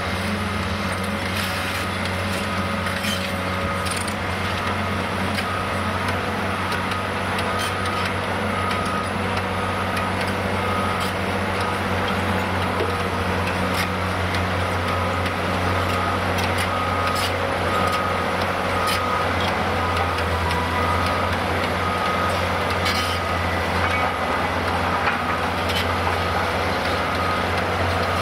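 Cat 390D high-reach demolition excavator's C18 diesel engine running steadily under hydraulic load. Scattered sharp knocks and cracks come as the demolition jaws work the concrete. From about five seconds in, a reversing alarm beeps at an even pace.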